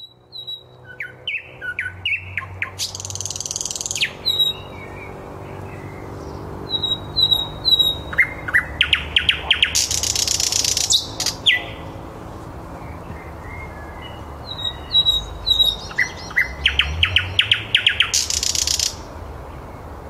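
Thrush nightingale singing: three song phrases, each of a few short clear whistled notes, a quick run of clicking notes, then a loud dry rattle.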